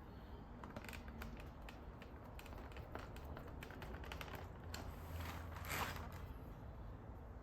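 Logitech wireless keyboard's plastic keys and parts clicking and tapping irregularly as it is handled. A brief louder scraping rustle comes about five to six seconds in.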